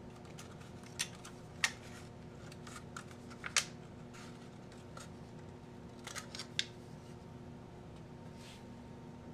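Light clicks and taps of small containers and tools being handled while measuring and mixing two-part casting resin, a dozen or so scattered knocks with a cluster near the end, over a faint steady hum.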